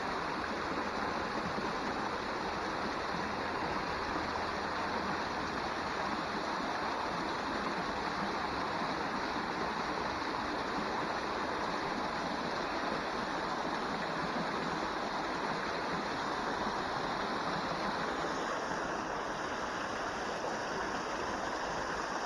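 Water rushing steadily through gaps in a wooden canal lock gate and splashing down into the lock chamber.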